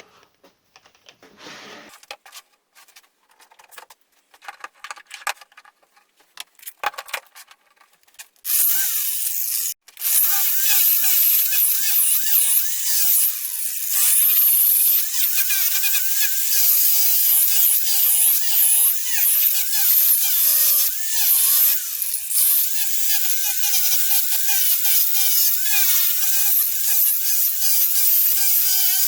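Small 3M disc sander starting up about eight seconds in, after a few handling clicks, then running at high speed as it grinds away material: a high whine whose pitch wavers as the disc bites and eases, with a brief stop about ten seconds in before it runs on.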